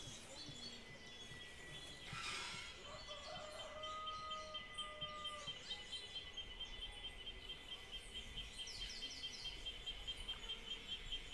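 Quiet rural outdoor ambience: birds chirping over a steady high pulsing drone, with one long held call a few seconds in.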